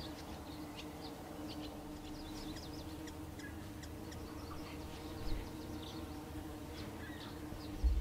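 A flowering tree full of foraging bees, a steady buzzing hum, with small birds chirping over it. Two low thumps, a faint one a little past five seconds and a louder one at the very end.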